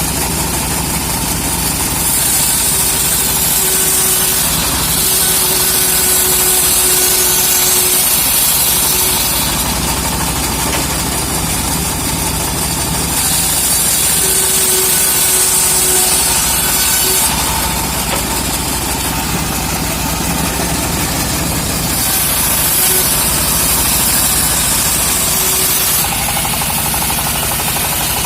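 Engine of a homemade sawmill running steadily while its saw blade cuts through a teak log. The sound of the cut rises over the engine several times, for a few seconds at a stretch.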